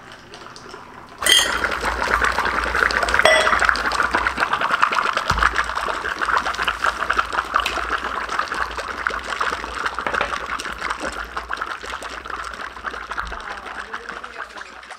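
Dry ice bubbling and fizzing in a glass of cocktail. The fizzing starts suddenly about a second in and slowly fades.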